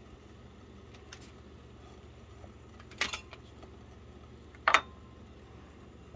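Two sharp clinks of a spatula against a nonstick frying pan, about three seconds in and again near five seconds; the second is louder, with a brief ring. A low steady hum runs underneath.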